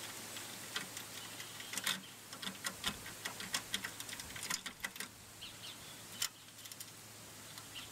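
Faint, irregular small metallic clicks and taps as bolts, nuts and washers are handled and fitted by hand to fasten the clamp cross slide to the steel sawmill frame.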